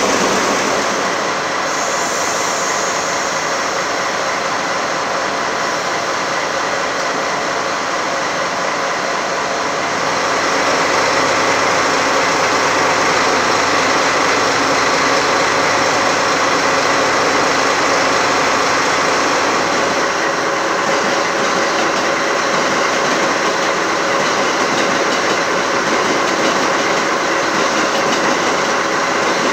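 Diesel locomotive engines of a JNR DD51 and DE10 running steadily, a continuous engine rumble with a steady whine over it, a little louder from about ten seconds in.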